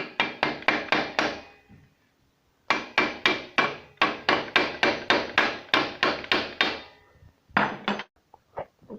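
Hammering metal on metal: a knife blade is struck against a rivet in a motorcycle muffler to knock the rivet out. A short run of blows, a pause, then a fast steady run of about four blows a second, a couple more, and a few lighter taps near the end.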